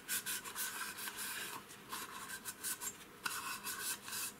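Paper tissue rubbed in quick, irregular strokes over a metal instrument housing and its aluminium cover, wiping them clean.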